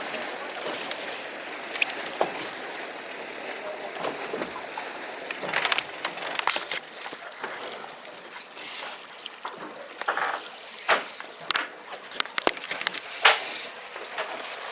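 Water sloshing against a small fishing boat's hull, with scattered sharp clicks and knocks of handled fishing tackle that come thicker in the second half.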